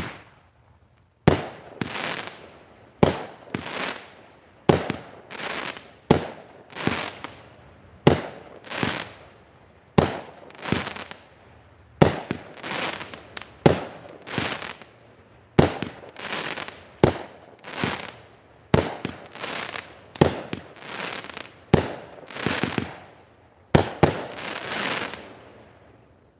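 A 200-gram "Phantasm" consumer firework cake firing in sequence: about fifteen shots, one every second and a half to two seconds. Each shot is a sharp launch crack followed by about a second of noisy burst.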